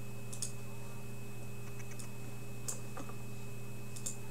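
A few faint, scattered clicks over a steady low hum.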